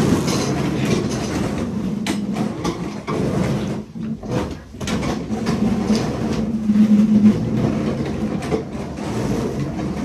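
Chairs scraping across the floor and knocking against desks as a roomful of children stand up and push them in, with shuffling footsteps, a continuous clatter.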